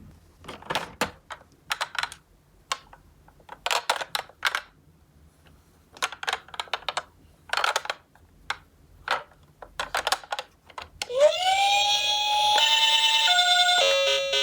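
Small die-cast Tomica ambulance minicars clicking and clattering against each other in short bursts. About eleven seconds in, a loud electronic tone swoops up, holds, then steps between pitches like a siren.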